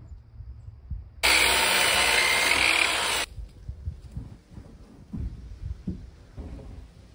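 A power saw cutting lumber for about two seconds, starting and stopping abruptly. Before and after it, scattered low knocks of 2x4 boards being set down and shifted on a plywood floor deck.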